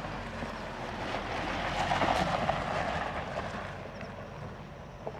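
Isuzu D-Max 4x4 pickup driving off-road, a steady rumble of engine and running noise that swells about two seconds in and then eases off.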